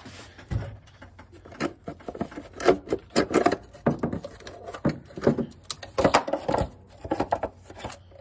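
Irregular clinks, knocks and rattles of hands working on metal parts and tools under the hood of a car.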